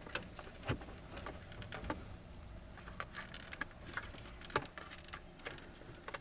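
Scattered light clicks and taps of plastic dash trim and a plastic pry tool being handled under a truck's dashboard, with a couple of sharper knocks, one about a second in and one past the middle.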